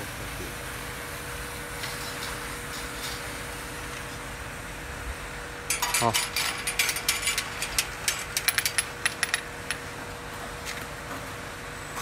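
Bottle washing machine with a steady hum. About six seconds in, a run of rapid, irregular clicking and rattling starts and lasts roughly four seconds.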